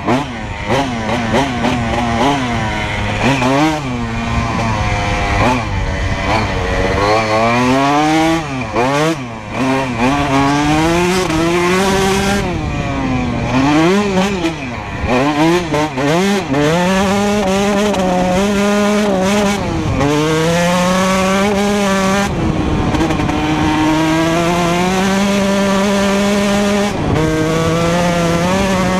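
2004 Honda CR125R's single-cylinder two-stroke engine through a full Pro Circuit exhaust, ridden hard: the revs swing up and down repeatedly in the first half, then hold steadier with a few sudden drops in pitch.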